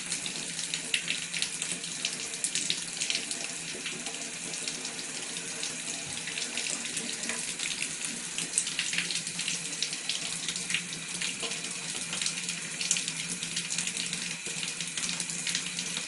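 Water running and splashing in a bathtub: a steady rush with many short, sharp splashes as a cat paws at the water by the drain.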